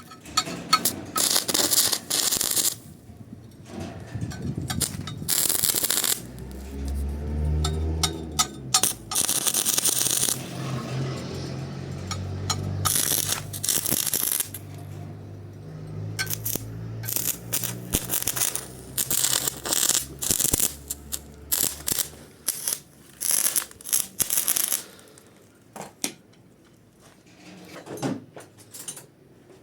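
Arc welding powered by two batteries: the arc crackles and sizzles in repeated short bursts, each lasting one to a few seconds, stopping and striking again many times. A low droning tone runs underneath through the middle.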